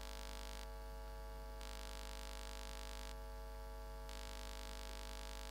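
Steady electrical mains hum in the sound system, with a faint hiss above it that comes and goes every second or so.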